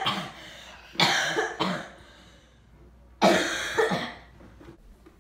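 A boy coughing hard in the middle of a laughing fit: about five harsh coughs in two clusters, the second cluster starting about three seconds in.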